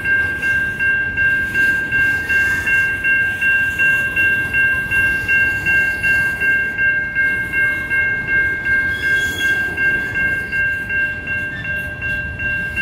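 Type 3 Safetran electronic crossing bell ringing, a high tone repeating at a couple of strikes a second, over the rumble of coal hopper cars rolling slowly through the crossing.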